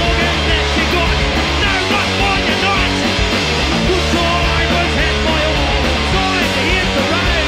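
Loud punk rock music from a full band, playing steadily without a break.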